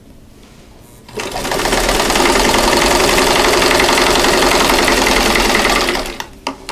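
A 1952 Singer 15-91 sewing machine stitching a seam through quilt fabric. It starts about a second in, picks up speed, runs steadily for about four seconds, and stops near the end, followed by a few light clicks.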